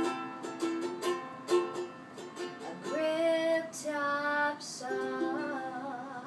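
Ukulele strummed while a woman sings. Quick chord strums fill the first couple of seconds, then she holds a few long sung notes over lighter playing, growing quieter toward the end.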